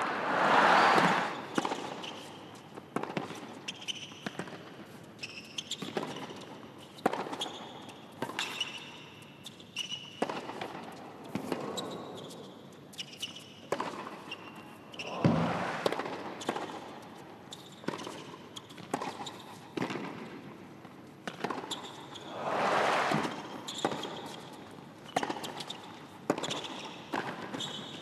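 Tennis rallies on a hard court: a ball struck back and forth by racquets, a sharp pop every second or so, with crowd applause swelling in briefly between points, near the start, about halfway through and again a few seconds later.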